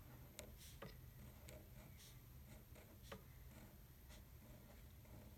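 Near silence with faint, scattered taps and soft strokes of writing on paper.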